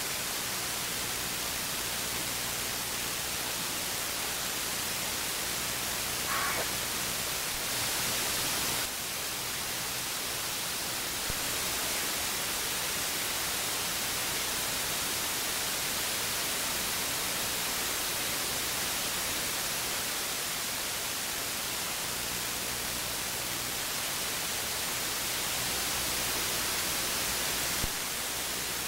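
Steady hiss of radio static with a faint low hum underneath, the noisy audio of the balloon's received amateur-television downlink. A short faint tone sounds briefly about six seconds in.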